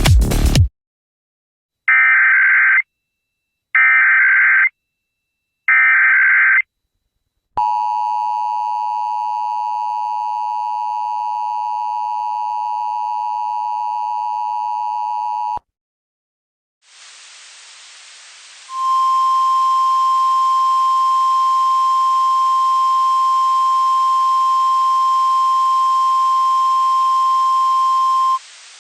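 Emergency Alert System tones breaking into radio music, which cuts off in the first second. Three short bursts of SAME header data tones follow, then the eight-second two-tone EAS attention signal. Radio static comes next, and over it a steady single tone, the NOAA Weather Radio warning alarm tone, sounds for about ten seconds.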